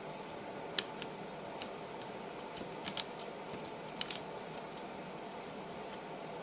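Small sharp metal clicks and taps, about eight of them spaced irregularly, as tiny screws are backed out of a holographic sight's housing with a small hex key and set down. A faint steady hiss runs underneath.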